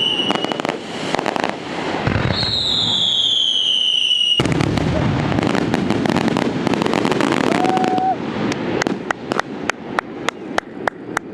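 Fireworks display: a whistling shell falls in pitch about two seconds in over dense crackling, then a rapid run of sharp bangs, about three a second, starts near the end.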